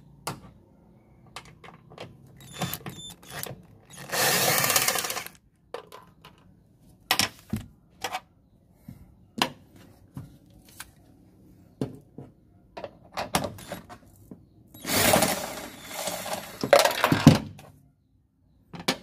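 Cordless drill driver running in two bursts, one of about a second some four seconds in and a longer one of two to three seconds near the end, as it backs out the bolts holding a car's rear bench seat. Short metallic knocks and clicks of the tools come in between.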